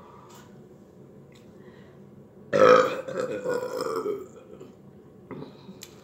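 One loud, drawn-out burp starting suddenly about two and a half seconds in and lasting about a second and a half.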